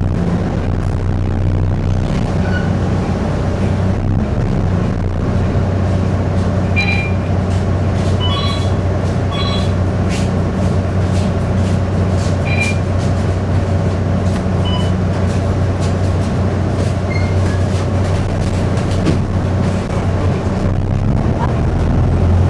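Singapore city bus on the move, heard from inside the cabin: a steady engine and drivetrain hum with light rattling and a few brief high squeaks.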